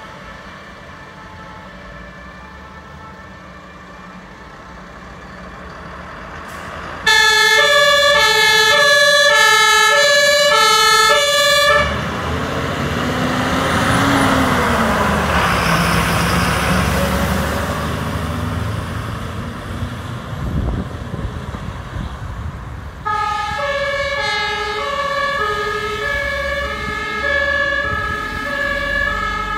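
Fire engine pulling out: a low engine rumble, then about seven seconds in a loud German two-tone horn (Martinhorn) starts, alternating a high and a low note, and cuts off suddenly about five seconds later. The heavy truck's engine and tyres on the wet road then swell and pass close by. Near the end the two-tone horn sounds again, quieter.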